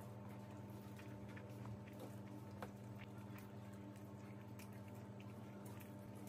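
Faint wet squishing and small clicks of a hand mixing biryani rice with curry on a steel plate, over a steady low hum.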